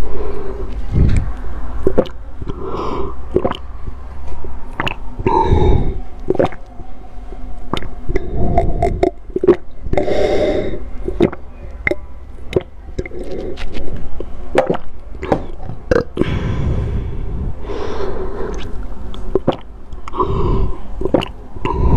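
Close-miked gulping and swallowing as a drink is downed in long draughts from a plastic jar: repeated throat gulps with many sharp, wet mouth and throat clicks.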